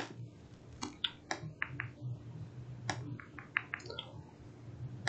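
About ten faint, irregularly spaced clicks, some in quick runs, over a low steady hum.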